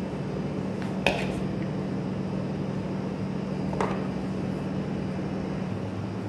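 A metal spoon knocks twice against dishes while boiled green beans are scooped into a baking dish, over a steady low hum.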